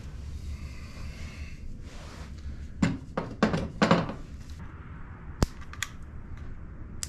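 Several short bursts of aerosol brake cleaner sprayed through a straw onto the ignition contact-breaker points to clean them. Two sharp metallic clicks follow near the end.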